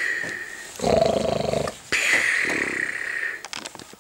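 Imitated snoring: a rough, rasping snore on the in-breath, then a long hissing, whistling out-breath, repeated twice before it fades out.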